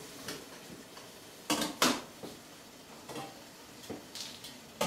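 Metal lid being lifted off a steamer pot: two clanks about a second and a half in, then a few lighter knocks and clinks.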